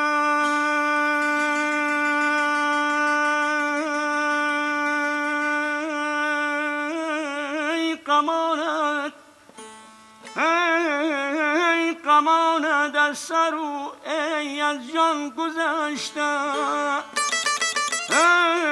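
A male folk singer holds one long, steady note, then sings a wavering, heavily ornamented melismatic line, over a strummed long-necked lute.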